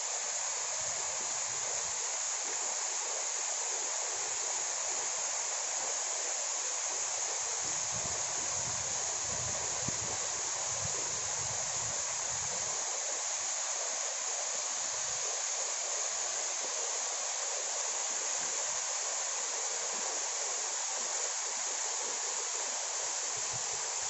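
Small waterfall splashing down a rock face onto stones and into a shallow pool: a steady rushing hiss of falling water.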